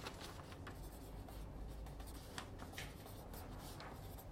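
Faint room tone: a low steady hum with a handful of soft, scattered clicks and scratches.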